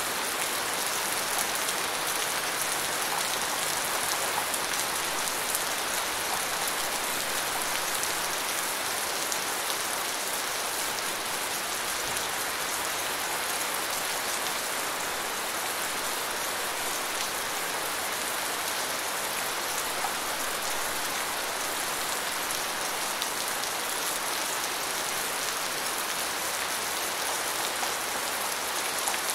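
Steady rain falling: an even hiss of many drops, with faint scattered ticks of single drops.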